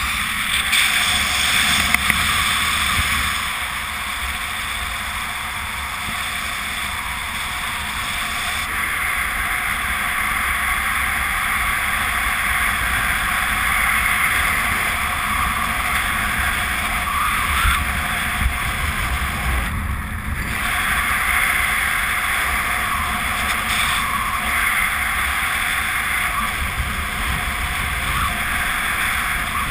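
Rushing airflow over the camera microphone of a speedflyer in fast flight under a speed wing: a steady windy hiss with an uneven low buffeting rumble.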